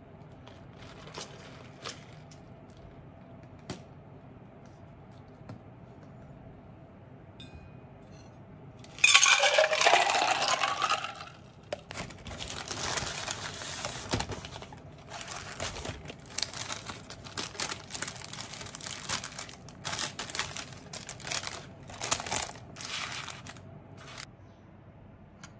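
Paper takeaway bag and food wrapper rustling and crinkling as food is unwrapped, loudest in a burst about nine seconds in and then in shorter bursts, with a few light knocks before.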